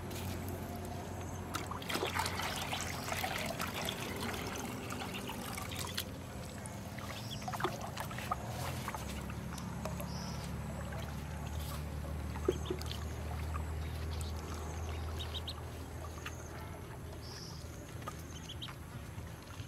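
Ducklings paddling and dabbling in a shallow plastic tub of water: small splashes, drips and trickling, busiest a couple of seconds in, over a steady low hum.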